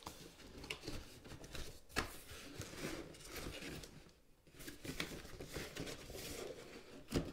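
Plastic parts and packaging being handled: irregular rustling and scraping with a few sharp clicks, the sharpest about two seconds in and near the end.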